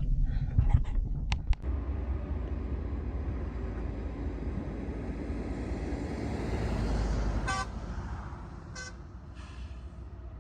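A road vehicle passing on the highway, its rushing noise growing louder and then fading, with three short horn toots as it goes by. A few sharp knocks sound in the first second or so.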